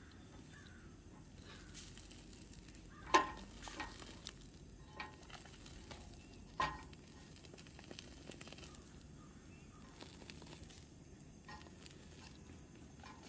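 Portable butane camp stove burner hissing steadily while food held in metal tongs over the flame sizzles and flares up. Two sharp clicks stand out, about three seconds in and again about six and a half seconds in.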